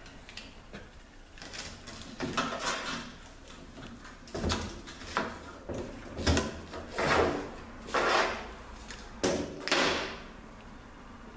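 A series of irregular scrapes and clunks from tools and metal transmission parts being handled and slid on a work surface, busiest in the second half.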